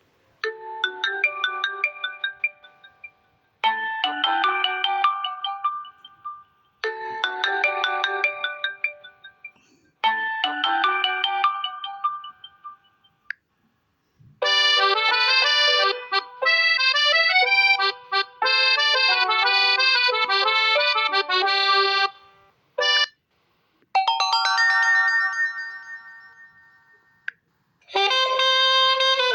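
Huawei Y5 2019 ringtones playing one after another: a short synthesized phrase repeated four times, then a busier melody, a brief blip, a fading chime, and a new tune starting near the end.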